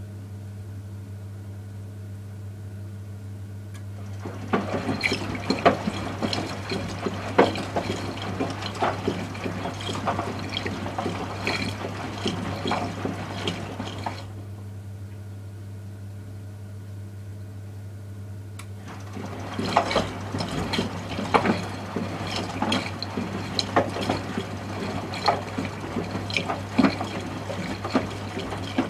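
Miele W 435 front-loading washing machine drum tumbling a load through water. There are two spells of sloshing and splashing, each about ten seconds long, separated by a pause of about five seconds while the drum rests. A steady low hum runs underneath.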